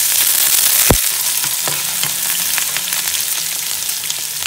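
Chopped shallots sizzling and crackling in hot ghee in a frying pan with mustard seeds and whole dried red chilies, with one sharp pop about a second in. The sizzle eases off slightly as it goes on.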